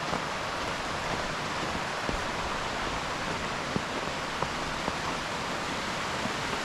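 Steady rush of creek water running over rocks and small falls, with a few faint ticks.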